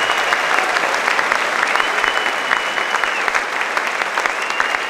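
A large audience applauding, a dense steady clapping. A thin, steady high tone sounds over it twice, each time for about a second and a half.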